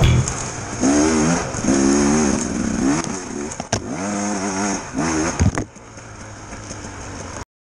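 Enduro motorcycle engine revving in repeated rising and falling surges, with the throttle opened and closed as it is ridden. It drops to a lower, quieter run about six seconds in and cuts off abruptly near the end.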